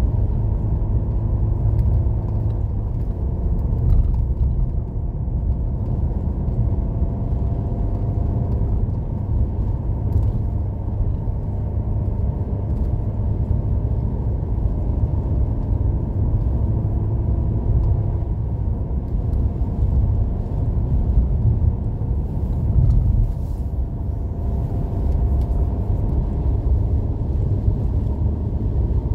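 Steady low rumble of a car's engine and tyres on a snow-covered highway, heard from inside the cabin, with faint engine tones slowly drifting in pitch.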